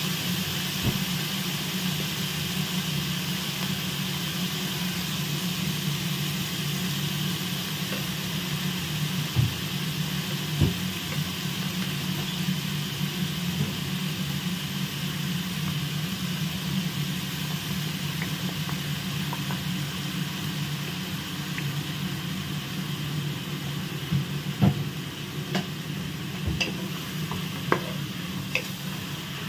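Shredded chicken and sliced onions sizzling in oil in a nonstick pan while a wooden spatula stirs them, with a few sharp taps of the spatula against the pan, mostly near the end. A steady low hum runs underneath.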